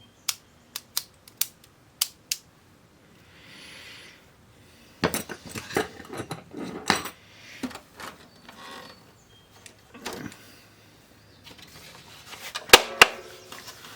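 A quick run of about six sharp clicks, then metallic clinking and clattering of small parts and tools being handled, loudest near the end.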